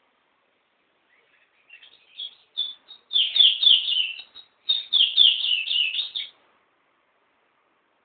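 Small pet songbird singing: quick high chirped notes that start sparse about two seconds in and run together into a dense phrase, then after a short break a second fast phrase that stops about six seconds in.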